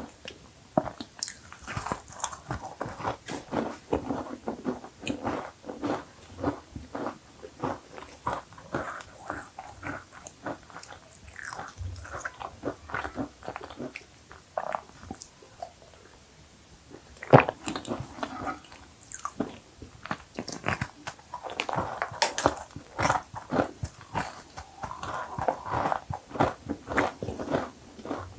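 Close-miked eating of cookies: repeated crisp crunching bites and chewing, with one sharp loud crunch partway through.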